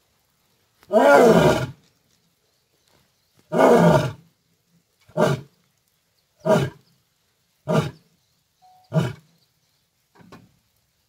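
Male Asiatic lion roaring: two long full roars, then a run of five short grunting calls about a second and a quarter apart that grow shorter and fainter, the usual close of a lion's roaring bout.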